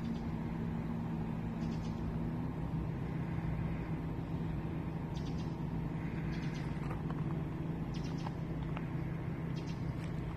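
A steady low machine hum made of several fixed tones, with a few short, faint high chirps scattered over it.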